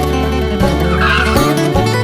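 Background music with sustained notes, and a brief added sound effect over it about a second in.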